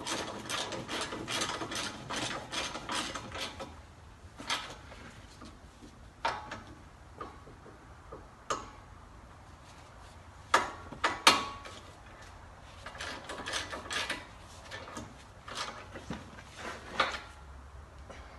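Hand ratchet wrench clicking in quick strokes as a bolt on the front brake and hub assembly is tightened. This is followed by scattered clicks and a few metal clanks.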